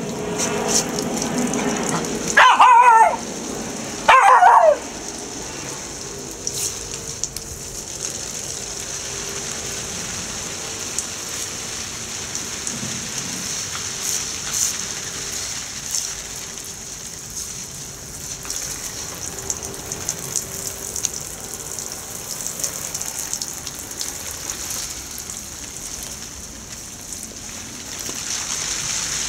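Irish Terrier puppy giving two loud barks about a second and a half apart, each falling in pitch. After them, a garden sprinkler's water jets hiss and spatter steadily on the wet paving and plants.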